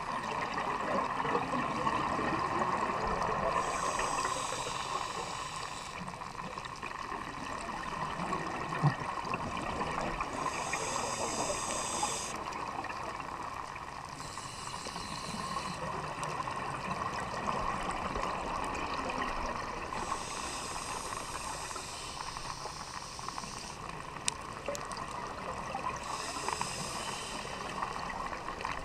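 Scuba divers' regulator breathing heard underwater: spells of exhaled bubbles rushing out for a second or two, about every five seconds, over a steady underwater hiss.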